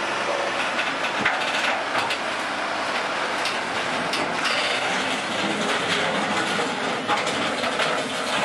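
Heavy mobile crane moving over a steel lowboy trailer's deck and ramp, a steady mechanical rushing noise with scattered clanks and clicks of metal.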